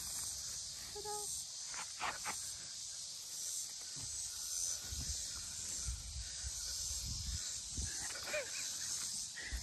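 Steady high-pitched insect chorus, with low rumbling wind buffets on the microphone from about four seconds in as the swing spins.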